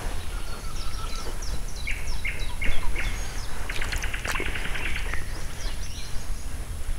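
Woodland birds singing: a run of short chirps, then a rapid trill of quickly repeated notes lasting about a second and a half, over a steady low rumble and a few sharp clicks.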